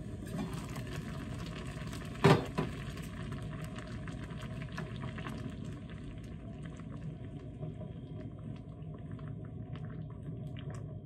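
Soup boiling steadily in a stainless steel saucepan on a gas stove. About two seconds in there is one loud metal clank, with a smaller one just after, as the pot's lid comes off. Later a wooden spoon stirs the soup with light taps.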